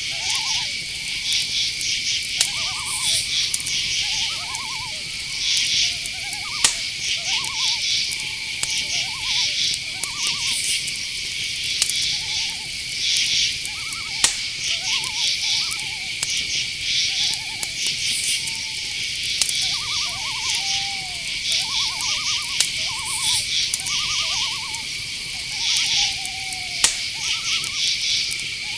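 Night-forest insects chorusing: a steady high trill under repeated pulsed cricket chirps. Over it come frequent short, quavering hooting calls from owls, with a few sharp ticks about a quarter and half way through and near the end.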